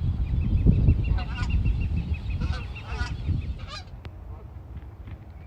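Canada geese honking, several calls between about one and four seconds in, over a low rumble that is loudest in the first three seconds. A rapid run of high ticks sounds beneath the first calls.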